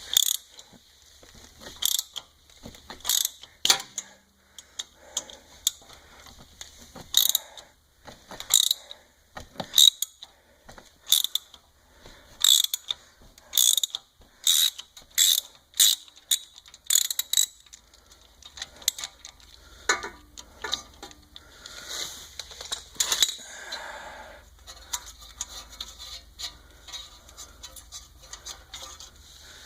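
Socket ratchet wrench clicking in repeated strokes as a rust-frozen bolt is worked loose, a burst of clicks about once a second for the first half, then sparser.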